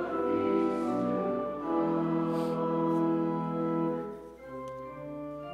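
Church organ closing the offertory hymn: a loud chord held for about two seconds, then after a short dip the organ goes on with softer sustained chords.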